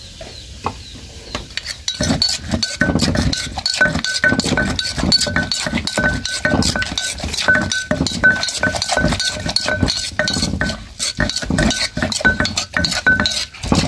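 A wooden pestle pounding and a metal spoon scraping and clinking in a mortar as a freshwater-mussel salad is pounded and mixed: quick, uneven knocks and clinks that start about two seconds in.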